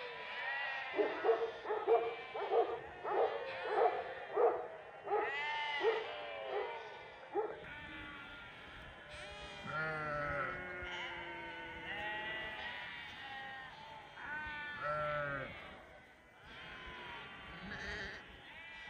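Flock of sheep and lambs bleating, many calls overlapping. The first several seconds hold a quick run of short calls, about three a second, and after that come longer, wavering bleats.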